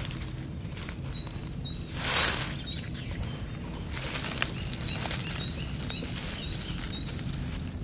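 Dry leaf litter rustling and crackling under a hand clearing around and picking a morel, loudest about two seconds in, with one sharp click about four and a half seconds in. A small bird repeats short high chirps throughout.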